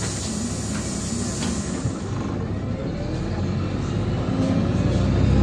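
Cabin noise of a LiAZ-5292.67 CNG city bus under way: a steady engine and drivetrain rumble, with a whine rising in pitch from about halfway and the sound getting louder near the end as the bus picks up speed.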